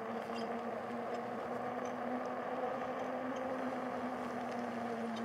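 E-bike hub motor whining steadily under way, over the rolling noise of the tyres.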